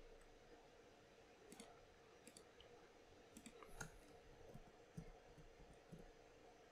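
Faint computer keyboard and mouse clicks, a few scattered irregularly over near silence.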